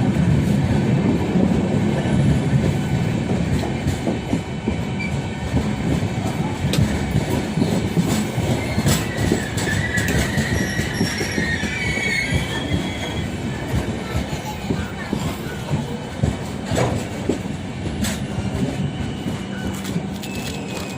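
Passenger train coaches rolling along the rails, with a continuous rumble and clatter of wheels over rail joints. A wavering high wheel squeal rises in the middle as the arriving train brakes.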